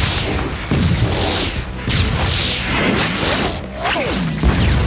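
Cartoon action sound effects of thrown, explosively charged playing cards: several quick whooshes, each ending in an explosion boom, over background music.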